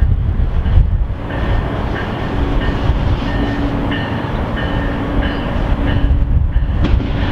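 Passenger train approaching: a steady low rumble with faint, broken high-pitched tones over it from about a second in.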